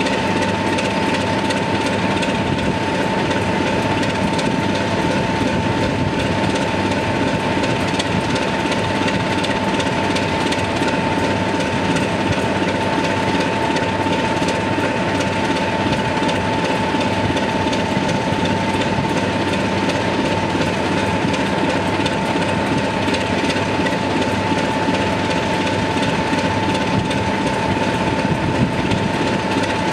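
Class 26 diesel locomotive idling at a standstill, its Sulzer engine running with a steady throb and a constant high whine over it.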